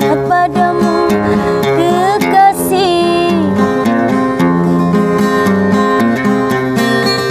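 Classical guitar played with a capo, plucking chords and a melody, under a woman's singing voice whose line slides down and ends about halfway through, leaving the guitar playing alone.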